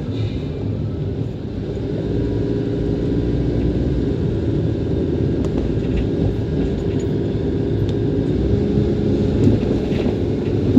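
Car driving along a city street: a steady low road and engine rumble that grows slightly louder after about two seconds.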